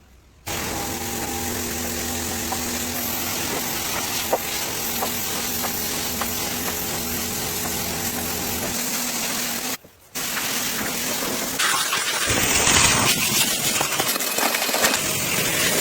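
An engine running steadily. After a short break about ten seconds in, a louder steady hiss takes over.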